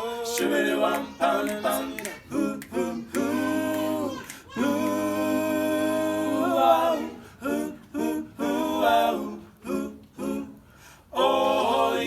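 A cappella vocal group singing close doo-wop harmony with no instruments: short rhythmic backing syllables, a long held chord in the middle, and a full held chord near the end.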